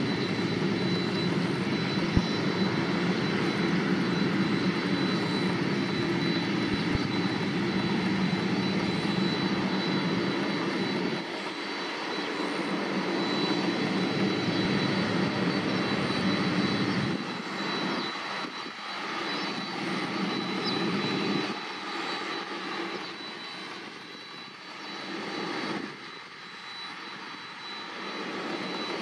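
Boeing 767-300ER's twin General Electric CF6-80C2 turbofans at low taxi power: a steady jet whine with a thin high tone over a low hum. The low hum drops away about eleven seconds in, and the sound then wavers, rising and falling, as the aircraft passes.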